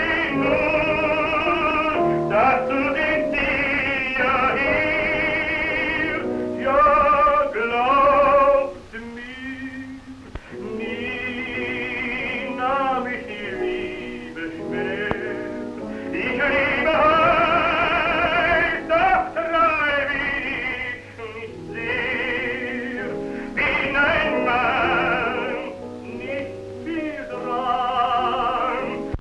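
A male tenor voice sings an operetta song with wide vibrato, accompanied on piano. The voice drops out briefly about a third of the way in, leaving the piano alone.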